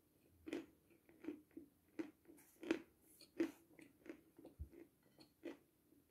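Close-up chewing of dry chalk, a crisp crunch at each bite-down in a steady rhythm of about three chews every two seconds.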